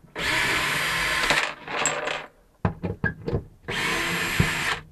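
Handheld power drill run in three short bursts, about a second each, backing out the screws of a wooden access panel, with small clicks and knocks between the bursts.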